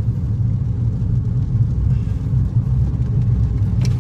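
Steady low rumble of a car driving on a rain-wet road, heard from inside the cabin, with a single short click near the end.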